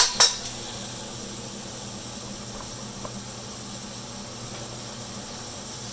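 Food frying in oil in a hot wok, a steady sizzling hiss, with a sharp clink of a metal spatula against the wok right at the start.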